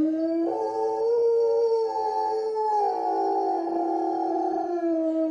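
Czechoslovakian wolfdog howling in one long, unbroken howl, with several steady pitches sounding at once.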